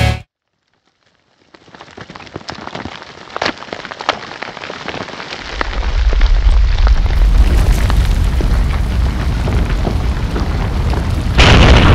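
After a second of silence, crackling starts and builds, with scattered sharp cracks. About halfway through, a deep rumble joins in, and near the end comes a sudden louder rushing burst.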